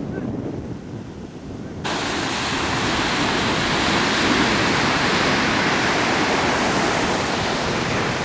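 Wind rumbling on the microphone, then from about two seconds in the loud, steady hiss of surf breaking on the beach, which eases off near the end.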